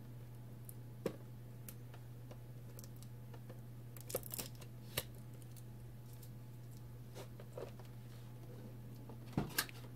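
Cardboard figure box and plastic packaging being handled: a few scattered clicks and rustles, the loudest two close together near the end, over a steady low hum.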